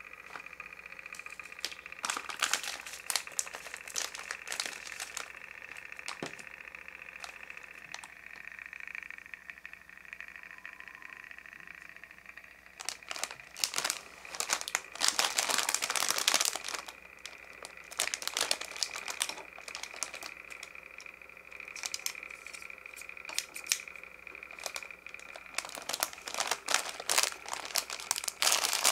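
Crinkling of a clear plastic candy-bag wrapper being handled and pressed, in bursts that are loudest around the middle and near the end, over a faint steady high whine.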